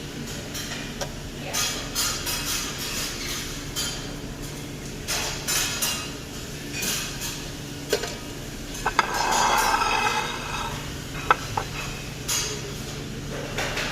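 Tableware handling: utensils and dishes clatter and clink against each other, with a few sharp ringing clinks among the lighter knocks, over a steady low hum.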